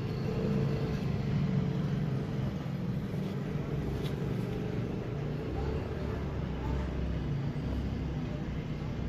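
Steady low rumble of road traffic, with a vehicle engine running.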